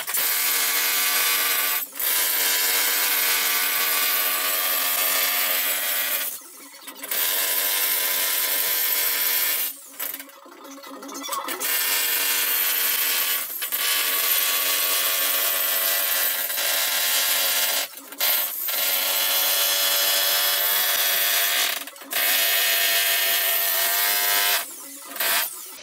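Jackhammer chiselling into a concrete floor slab, running in long stretches with several brief stops as the bit is lifted and reset.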